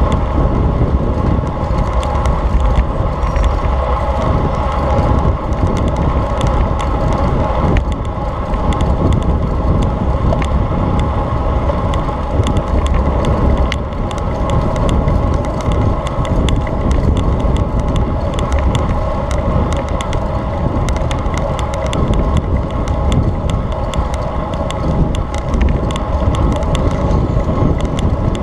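Riding a road bicycle: steady wind rumble on the microphone with tyre and road noise.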